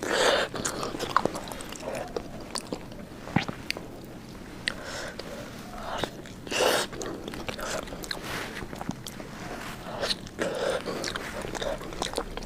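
Close-miked chewing and lip smacking on soft roasted sweet potato, with many small wet mouth clicks and a few louder bites or smacks.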